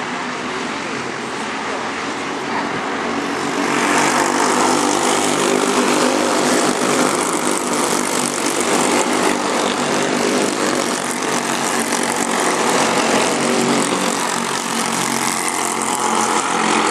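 Racing kart engine running hard at speed, its pitch rising and falling as it accelerates and eases off. It gets a little louder about four seconds in.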